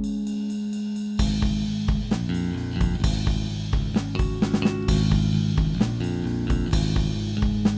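Rickenbacker-style electric bass holding a note, then playing a groove over a drum kit beat at 130 BPM; kick, snare and cymbals come in about a second in.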